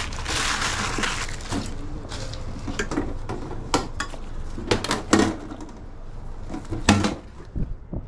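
Paper crinkling as a hot dog is wrapped, then metal tongs and utensils clicking and knocking on a stainless-steel hot dog cart, a few separate clacks spread over several seconds.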